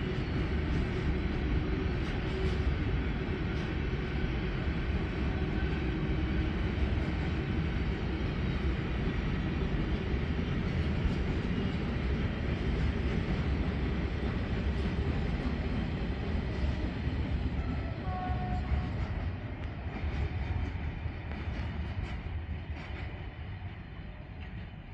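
Freight train wagons rolling past on the rails: a steady, heavy rumble and rattle that fades over the last few seconds as the train moves away.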